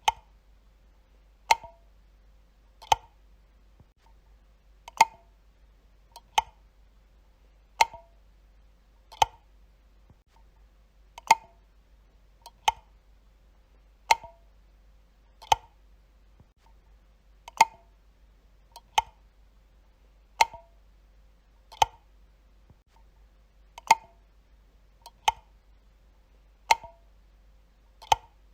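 Wall light switch being flipped again and again: a sharp single click about every one and a half seconds, some twenty in all.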